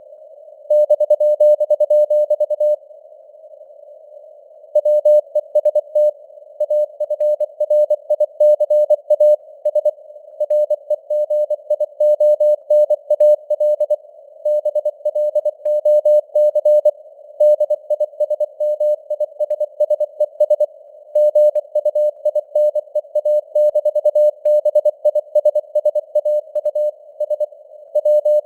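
Morse code news sent at 24 words per minute: a single mid-pitched sidetone keyed rapidly in dots and dashes over a band of simulated radio hiss, with the signal strength varying (QSB). A pause of about two seconds comes a few seconds in, then the keying runs on.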